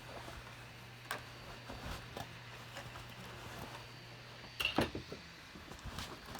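Scattered light taps and clicks of handling in a small room over a low steady hum, with a louder cluster of knocks about four and a half seconds in as the hum cuts off.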